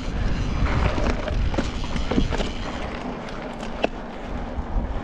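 Wind buffeting the action camera's microphone as a mountain bike rolls over grass and rough gravel, with tyre noise and scattered clicks and rattles from the bike; one sharp click stands out near the four-second mark.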